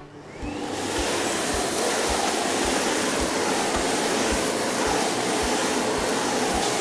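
Miele Blizzard CX1 bagless canister vacuum switched on: the motor spins up with a rising whine over about the first second, then runs steadily with a loud rush of air through the floor head.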